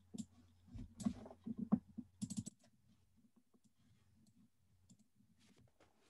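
Faint computer keyboard and mouse clicks. A quick run of keystrokes in the first couple of seconds is followed by sparser, fainter clicks, as a web address is typed in and checked.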